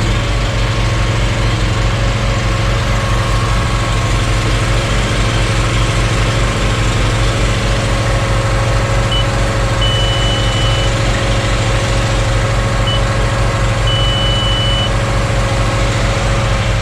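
Weigh wagon's engine running steadily just after start-up, with an even low throb. A high electronic beep, a short one followed by a long one, sounds twice in the second half.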